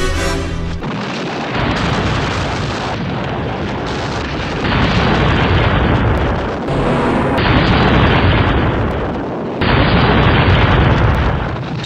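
Film explosions: heavy, continuous blast rumble that surges suddenly louder three times, at about four and a half, seven and a half and nearly ten seconds in, easing off near the end.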